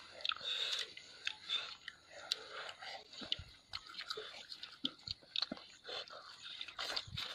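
Close-up chewing and biting of people eating grilled chicken and rice by hand, a run of irregular small mouth clicks and smacks.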